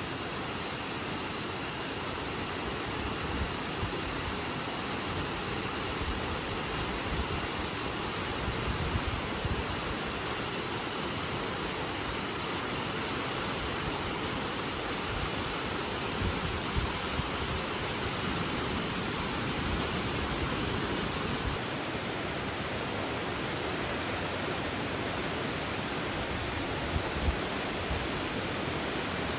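Steady rushing roar of Nachi Falls, the tall waterfall's water crashing down. The hiss changes slightly about two-thirds of the way through.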